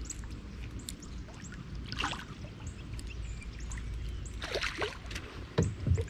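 Quiet open-water ambience with scattered short bird chirps, then a few sharper knocks and splashy sounds in the last second and a half.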